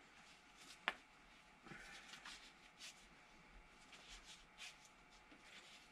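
Near silence with faint rustling and small clicks of hands working the sheathing back along the VGT actuator's electrical cable, and one sharper click about a second in.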